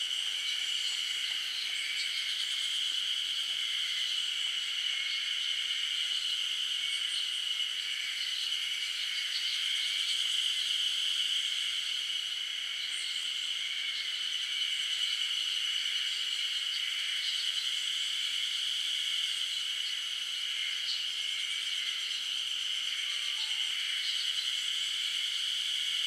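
Steady, high-pitched buzzing drone of an insect chorus, unbroken throughout, with a couple of faint distant bird notes.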